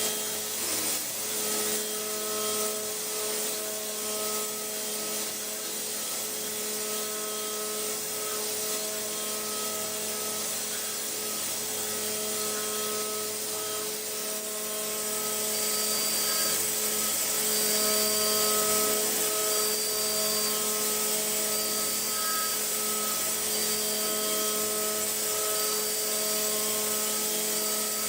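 CNC milling machine running and cutting: a steady machine hum with several whining tones, some pulsing on and off, over a hiss of cutting noise. A brighter, louder hiss comes in about halfway through.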